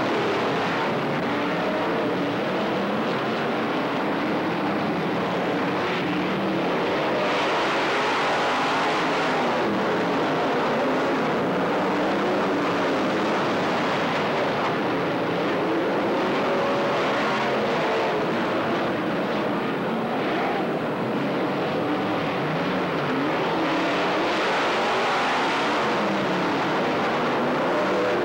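A pack of dirt-track stock cars racing on the oval, many engines running together, their pitches rising and falling as the cars go through the turns.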